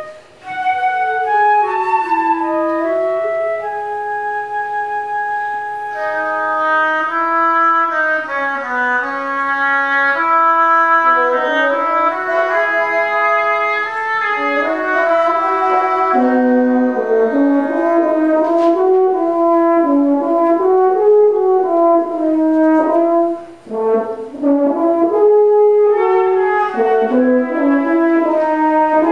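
Live chamber ensemble of flute, French horn and other winds playing a slow contemporary piece in sustained, overlapping melodic lines, with a brief break in the sound about two-thirds of the way through.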